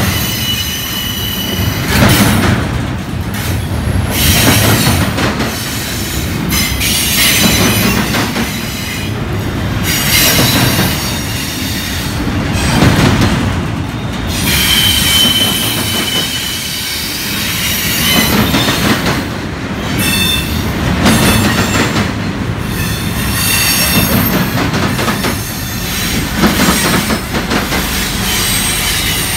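Double-stack intermodal well cars rolling past: a loud, steady rumble of steel wheels on rail, with clicking and high-pitched wheel squeals that come and go.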